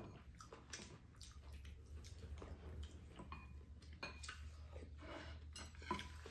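Quiet eating sounds: spoons tapping and scraping ceramic soup bowls, with wet sipping and chewing, in scattered small clicks over a low steady hum.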